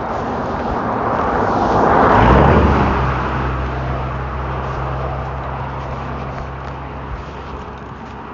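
A motor vehicle passing by: its tyre and engine noise swells to a peak about two seconds in, then a low engine hum fades away.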